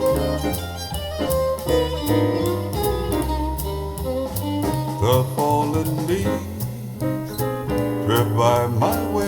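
Instrumental music played through an Elekit TU-8900 single-ended 2A3 tube amplifier and a two-way speaker with a Vifa tweeter and woofer, heard from the front of the speaker: a melody line with some sliding notes over a steady bass.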